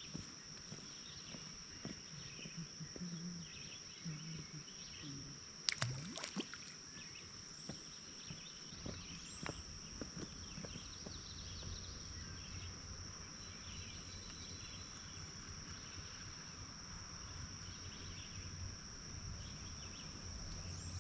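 Steady, high-pitched chorus of insects, with a few sharp clicks or knocks about six seconds in and a low rumble from about eight seconds on.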